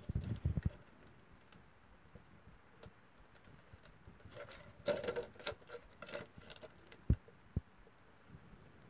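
A thin plastic bottle being handled, with light crinkling and crackling about halfway through and two short soft knocks shortly after.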